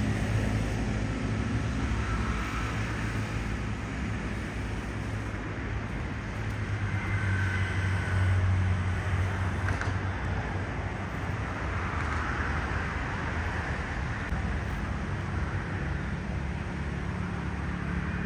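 Steady motor-vehicle noise: an engine running with road rumble, swelling a little partway through.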